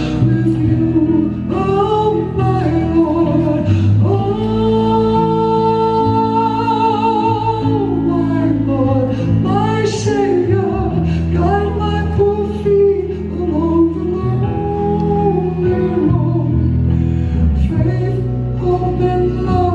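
A live band playing a slow Hawaiian song to accompany hula: sung vocals over guitar and bass, with long held notes and vibrato on the voice.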